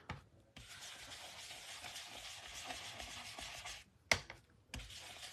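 Faint steady scratchy rubbing of a stamp being dabbed and rubbed on an ink pad, with a single tap about four seconds in.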